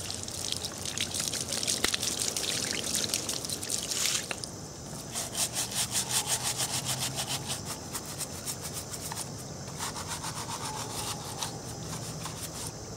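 Water from a garden hose splashing over a boiled deer skull onto concrete for about four seconds, then a scrub sponge rubbed back and forth over the skull and antlers in quick, repeated strokes, scouring off leftover crud.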